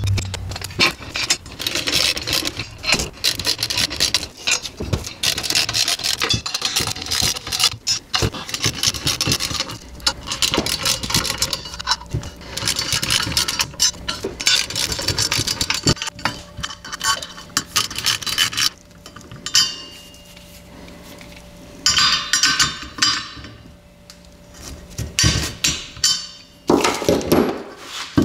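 Ratchet wrench clicking in fast runs of strokes, tightening nylock nuts on the bolts that hold a wave brake rotor to its carrier hat. The ratcheting is nearly continuous for about the first 18 seconds, then comes in three shorter bursts.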